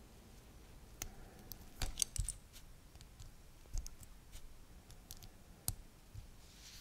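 Small hard-plastic clicks of LEGO minifigure parts being pulled off and pressed on, a head swapped on the torso and a cap snapped onto the hair. The clicks are sharp and separate, with a quick bunch of them about two seconds in.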